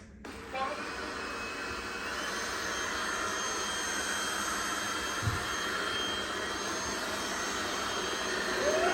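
Several iRobot Roomba robot vacuums running: a steady whir of motors and brushes with thin high whines, starting about half a second in and slowly getting louder. A brief low thump a little past halfway.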